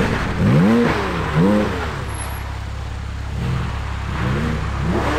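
Porsche 718 GT4 flat-six engine revving up and down in quick throttle blips, three in the first two seconds and three more near the end, over a steady low engine rumble.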